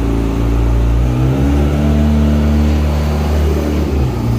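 Kawasaki ZX-6R's 636 cc liquid-cooled inline-four engine running at idle, then revved about a second in and held higher for a few seconds before dropping back to idle near the end.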